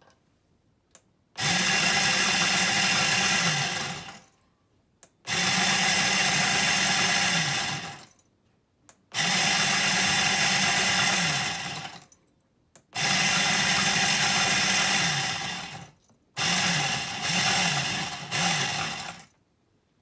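KitchenAid burr coffee grinder grinding beans in five timer-controlled bursts of a few seconds each, separated by short pauses with a faint click before each start. The timer meters the grounds by grinding time.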